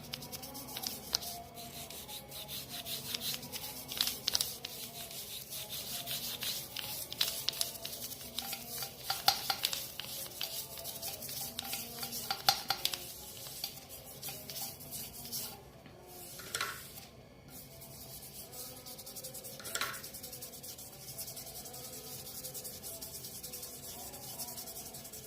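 An engine block being scrubbed by hand to strip grime and rust: rapid rasping rubbing strokes on metal. The strokes are loudest in the first half, pause briefly a little past the middle, then go on more softly.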